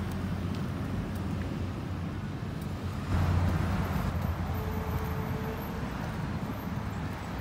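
Low, steady rumble of vehicle engines and traffic. It swells about three seconds in, and a brief steady hum comes in just past the middle.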